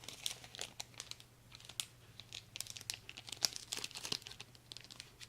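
Foil wrapper of a Pokémon booster pack crinkling and tearing as it is worked open by hand, a run of irregular sharp crackles.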